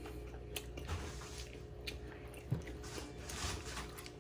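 Crispy deep-fried egg rolls being bitten and chewed, with scattered crunches and clicks.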